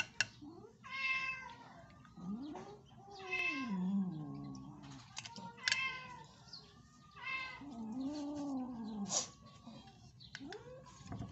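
A black-and-white mother cat meowing several times in long, drawn-out, low calls that rise and fall in pitch as she is stroked, with a few sharp clicks between the calls. She is just back from surgery and sensitive to handling.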